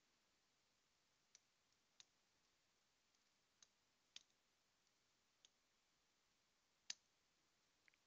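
Faint, sparse little metallic clicks as steel tweezers set pins into the pin chambers of an Abus Rock 83/55 padlock cylinder during reassembly. There are about six scattered ticks a second or so apart, and the sharpest comes near the end.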